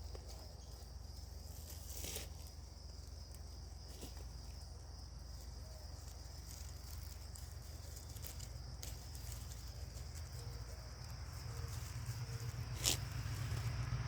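Outdoor background sound: a steady high-pitched chirring runs throughout, broken by a few sharp clicks. A low rumble swells near the end.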